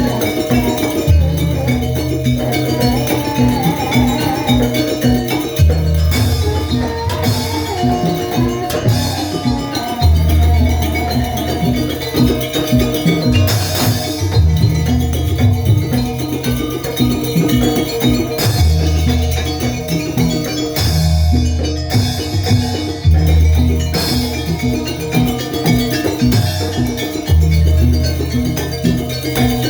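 Live jaranan buto music: a Javanese-Banyuwangi percussion ensemble of drums, gongs and metal percussion playing a steady repeating rhythm, with heavy low drum strokes returning every few seconds.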